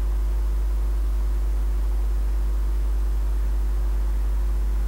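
Steady low electrical hum with faint hiss, unchanging throughout, with no clicks or beeps from the radiometer.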